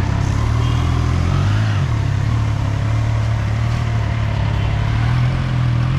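Triumph Trident 660's three-cylinder engine running at a steady idle, with a brief dip and wobble in pitch about two seconds in as the bike is eased forward.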